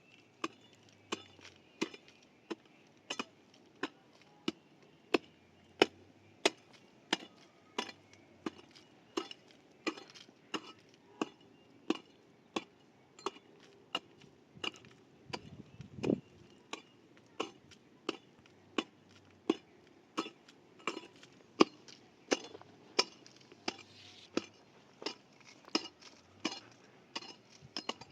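A hand tool striking over and over at a steady working pace, about three sharp strikes every two seconds, with one heavier low thud about sixteen seconds in.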